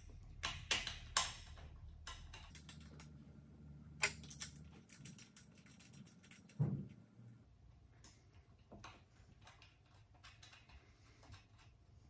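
Faint small metal clicks and taps as bolts are threaded finger-tight into a short shifter's housing and reverse lockout plate, with one duller knock about six and a half seconds in.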